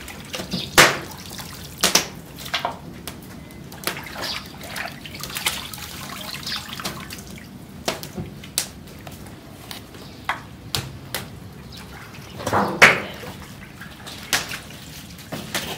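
Chunks of raw meat being washed by hand in a large metal pot of water: irregular wet splashes and squelches, with a sharp knock now and then.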